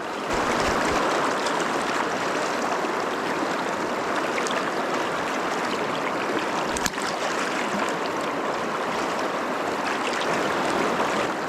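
Deschutes River current rushing steadily, with a single light click about seven seconds in.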